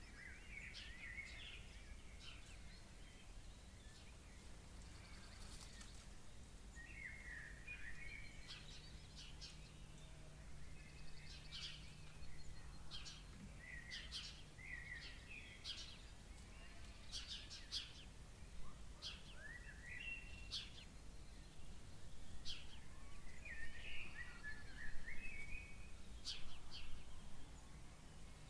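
Birds calling: short sharp chirps and warbling, wavering phrases repeated throughout, over a faint steady background noise.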